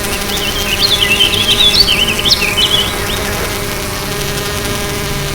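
Bee buzzing, a steady drone that comes in suddenly, with warbling high chirps over it for the first three seconds.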